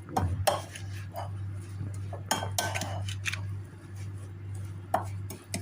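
Spoon and utensils clinking and knocking against a bowl while tabbouleh is mixed, in scattered irregular strikes, over a steady low hum.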